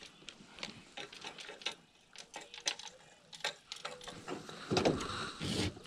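Spinning fishing reel being worked by hand, giving irregular mechanical clicks and ticks, with a louder knock and rustle near the end.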